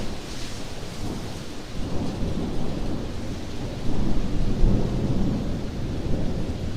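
Steady rain with a low rumble of thunder, swelling about four seconds in.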